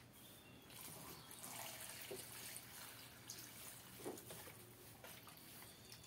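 Faint trickle of water poured from a plastic jug over leafy greens in a steel pot as they are rinsed, with a few light knocks from handling.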